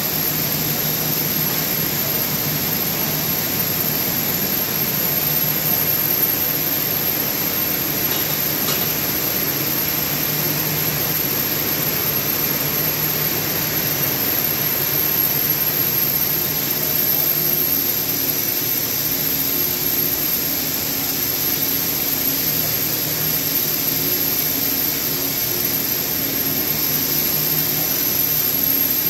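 Thread covering machines running: a steady whirring hum from the spinning spindles and take-up rollers, with a thin high whine over it.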